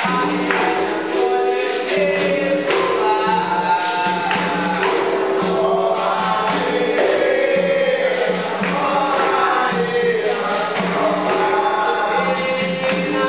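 Live capoeira roda music: berimbaus and an atabaque drum with a tambourine-like jingle, hand clapping and group singing, going on steadily.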